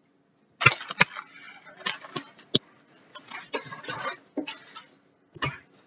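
Irregular light knocks and clicks, about a dozen over five seconds: someone moving about a kitchen and handling things close to the recording device.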